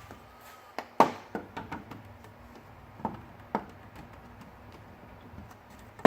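Sharp plastic clicks and knocks from the 2013 Range Rover Sport's front grille latches as their tabs are pushed down and the grille is pulled free. The loudest comes about a second in, and a few more follow, two of them around three seconds in.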